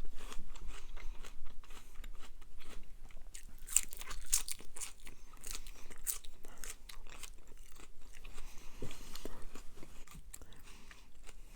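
A person chewing food with the mouth close to the microphone: a run of quick, irregular wet clicks and smacks.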